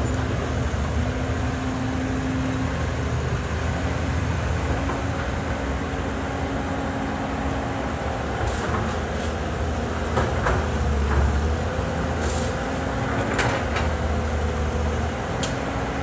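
Caterpillar hydraulic excavator's diesel engine running steadily under load as the machine dumps soil and swings back to dig, with a few sharp knocks and clatters in the second half.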